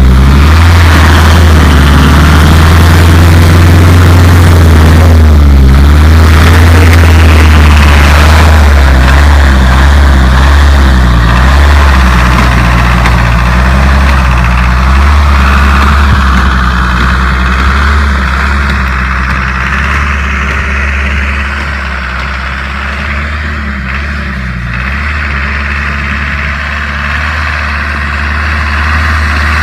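ARO off-road vehicle's engine working as it pushes through deep snow, under a heavy, steady low rumble. The engine grows fainter about halfway through as the vehicle pulls away, then louder again near the end.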